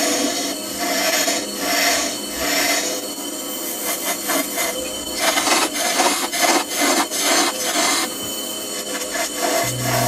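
Wood lathe spinning a small wooden workpiece while a hand-held steel cutting tool is pressed into it, a rasping scrape of the tool cutting wood. The scrape swells in strokes about twice a second at first, then comes in quicker, choppier cuts from about four seconds in.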